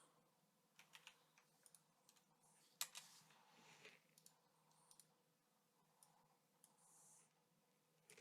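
Near silence broken by faint, scattered clicks at a computer as video frames are stepped through, with one sharper click about three seconds in.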